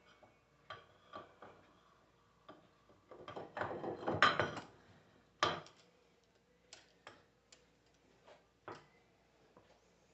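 Scattered clicks and metallic knocks of tools and alternator parts being handled while a worn alternator bearing is being taken out. There is a busier run of knocks about three to four and a half seconds in, then a single sharp knock.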